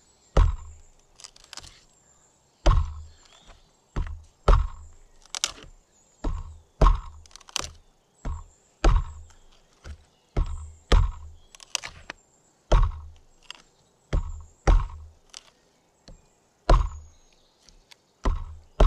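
Schrade Frontier SCHF37 survival knife, a thick 1095 carbon-steel blade, stabbed point-first into a dead log over and over to test its tip. About twenty sharp thunks, often in quick pairs.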